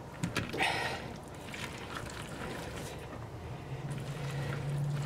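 Soft scraping and stirring of a silicone spatula mixing pasta salad in a plastic bowl, loudest in the first second. A low steady hum comes in a little past halfway and keeps going.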